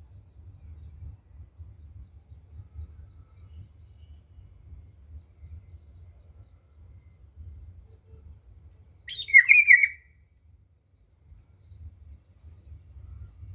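A bird gives one short, loud, chirping call about nine seconds in, lasting about a second. Behind it is a faint, steady, high-pitched insect drone and a low rumble.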